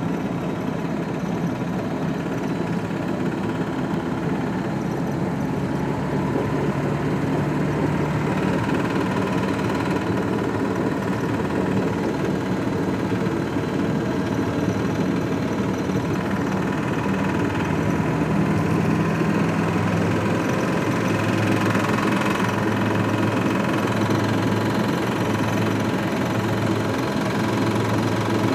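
A Lada VAZ-2106's inline-four petrol engine running steadily with a knock coming from the engine.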